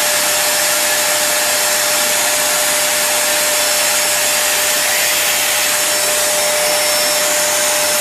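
Vacuum cleaner running steadily at full suction, a loud even rush with a constant high motor hum.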